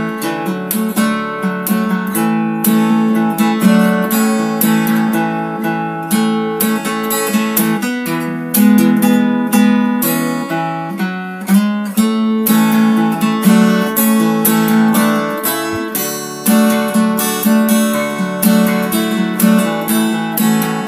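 Background music: an acoustic guitar strumming and picking chords.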